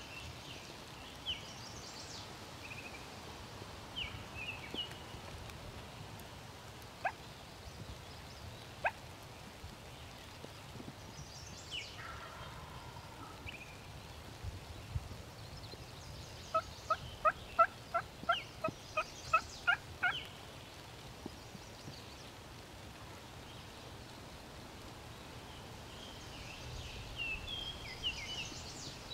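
A series of about a dozen turkey yelps, evenly spaced at about three a second, a little past halfway through. Songbirds chirp and whistle sparsely around it.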